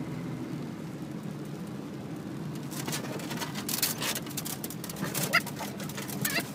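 Car cabin noise from driving, a steady low rumble. From about three seconds in, a dog's claws click and scrabble on the plastic dashboard, with two short high whimpers near the end.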